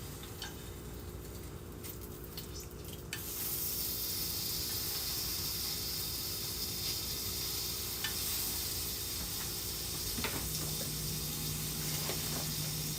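Stir-fry sizzling in oil in a frying pan. The sizzle grows louder about three seconds in and then holds steady, with a few light clicks.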